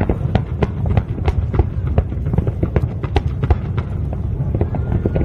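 Fireworks going off: a rapid, irregular series of sharp pops and bangs over a continuous low rumble.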